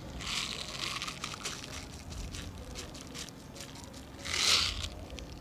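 BBs rattling and clicking inside a small plastic BB bottle as it is handled and tipped, with a louder rush of BBs pouring out into a cupped hand about four and a half seconds in.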